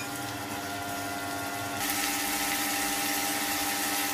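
Prawns frying in hot oil in a kadai, a steady sizzle that grows louder about two seconds in, over a steady motor-like hum.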